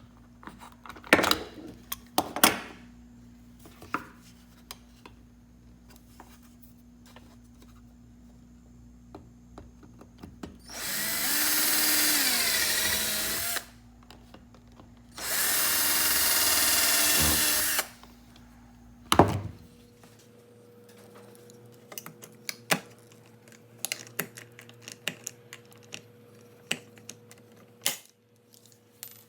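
Power drill drilling into a plastic armrest handle support, run twice for about three seconds each, its motor speed changing as it bites. Sharp knocks and clicks of handling the parts come before and after.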